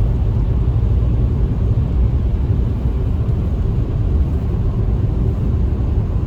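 Car driving at steady speed, a constant low rumble of road and engine noise heard from inside the cabin.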